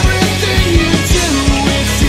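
Loud rock music with a driving drum beat, about four hits a second, over a steady bass and a guitar melody.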